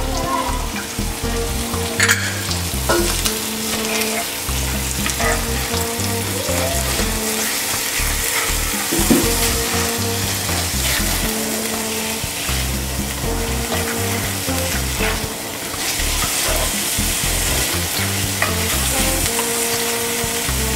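Diced vegetables and mixed seafood sizzling in oil in a cast-iron skillet, stirred with a spoon. Background music with held low notes plays underneath.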